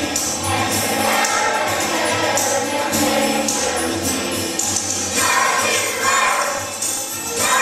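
Choir singing to musical accompaniment, with jingling percussion keeping a steady beat of about two strokes a second.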